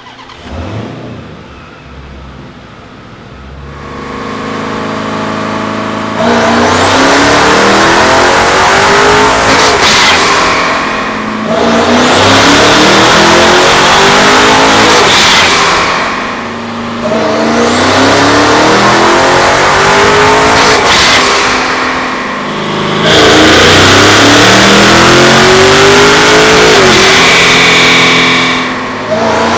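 Twin-turbocharged and supercharged Dodge Challenger Hellcat V8 making a full-throttle pull on a chassis dyno, after a few seconds of quieter running. The revs climb through the gears of the automatic transmission, with a short dip at each of about four upshifts, and a high whine rises with the revs.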